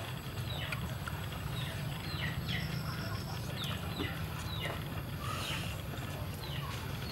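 Birds chirping: a string of short chirps, each falling in pitch, one every half second or so, over a steady low hum.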